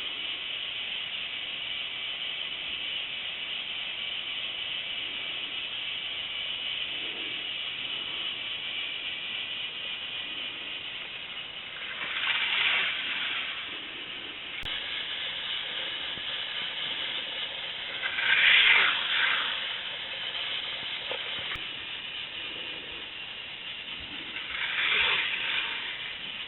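K'Nex Screamin' Serpent toy roller coaster running: a steady motorised whir and rattle, with the cars rattling more loudly along the plastic track in three swells about six seconds apart.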